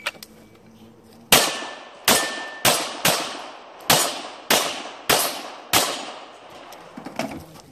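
A handgun fires eight shots in a fast string, starting about a second in. The shots come roughly every half second to second, each a sharp report with a short echo. A metallic ring follows two of the early shots.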